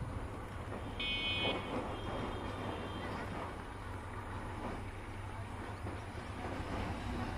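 Steady low outdoor rumble with light wind noise, and a short high-pitched horn toot about a second in.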